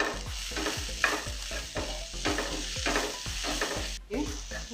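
Chopped onions and tomatoes sizzling in oil in a non-stick frying pan while a spatula stirs them, its strokes scraping and tapping against the pan about twice a second.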